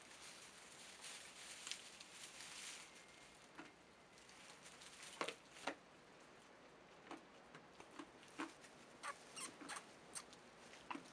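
Faint rustling of straw bedding as goat kids shift and nestle against each other, a soft rustle over the first few seconds, then scattered small clicks and ticks, more of them in the second half.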